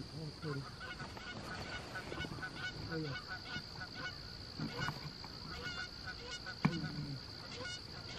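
Canada geese honking and clucking: many short, faint calls in quick succession, thickest in the first three seconds and then scattered.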